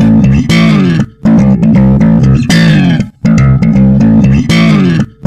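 Loud background music: a heavy riff on distorted guitar and bass that breaks off briefly about every two seconds, with a cymbal crash starting each phrase.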